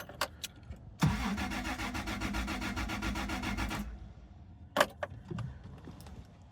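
Toyota Tacoma's 5VZ-FE 3.4 V6 turning over on the starter for about three seconds without firing, with a steady pulsing rhythm, then stopping; a short knock follows a second later. The engine cannot start because no fuel is reaching it.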